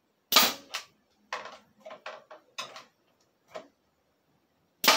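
Pneumatic brad nailer firing 2-inch brads into wood: a sharp shot with a puff of air about a third of a second in, and another near the end, with lighter knocks between.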